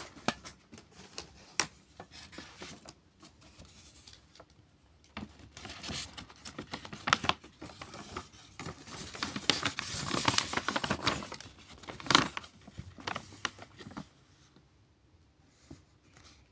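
A few sharp clicks and taps as a metal watch tin is handled, then a long stretch of paper rustling and crinkling as a paper shopping bag is handled, dying away near the end.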